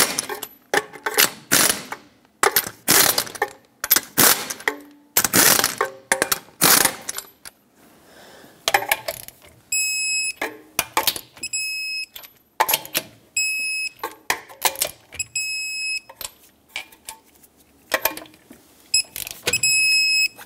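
Pneumatic impact wrench run in short bursts, spinning on and snugging the 4Runner's six lug nuts. From about ten seconds in, an electronic torque wrench gives repeated short high-pitched beeps as each lug nut reaches its set torque of 76 foot-pounds.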